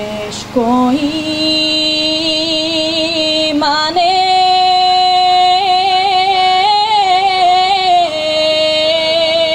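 A young woman singing a Bulgarian folk song solo and unaccompanied into a microphone, in long held notes with quick ornamental turns. She takes short breaths about half a second in and just before four seconds, and the melody steps up in pitch after the second breath.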